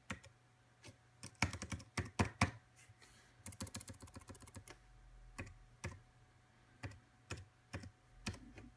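Keys of an Apple Wireless Keyboard clicking as a password is typed: scattered keystrokes with a quick run of them in the middle, then single presses spaced apart.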